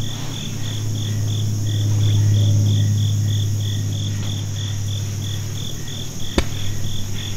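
An insect chirping in a steady rhythm, about four chirps a second, over a steady higher insect drone. A low steady hum underlies it, swelling about two seconds in, and a single sharp click sounds near the end.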